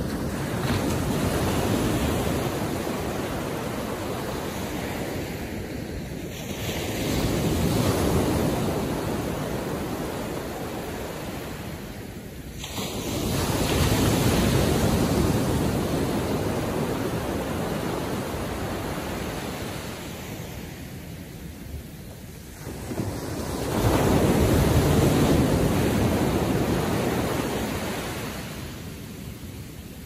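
Ocean surf breaking on the shore: four waves come in, each a rising rush of noise that builds, crashes and slowly fades before the next.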